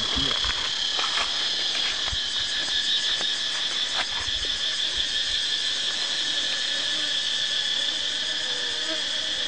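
Steady high-pitched drone of an insect chorus, with a few light knocks and clicks in the first few seconds.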